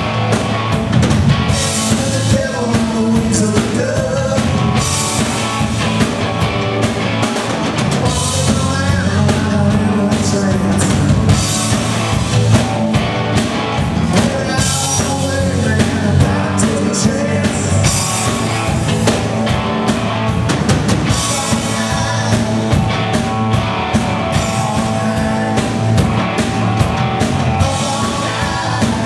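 Live rock band playing: electric guitars, bass guitar and drum kit at a steady beat.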